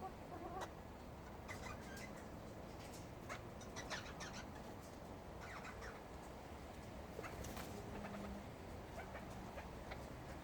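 Small parrots giving short, scattered chirps and calls over a low, steady hum, with a few sharp clicks among them.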